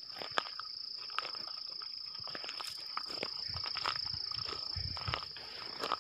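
A steady high-pitched insect trill, like a cricket's, held without a break, with irregular footsteps and small clicks as people walk along a bush track.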